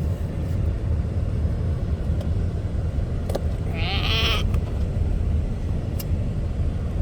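Steady low rumble with a few faint clicks, and about four seconds in a short, high, wavering vocal squeal, a child's strained noise while struggling to open a packaged box one-handed.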